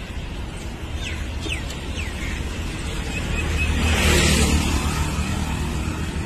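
Road traffic: a steady low rumble, with a vehicle passing by that swells and fades about four seconds in.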